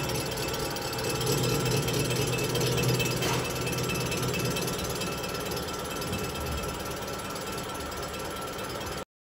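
Lathe running, spinning an air-cooled Porsche 964 cylinder head held in a fixture while it is machined to the late-model register: a steady mechanical whir with a few steady tones over it. It cuts off suddenly near the end.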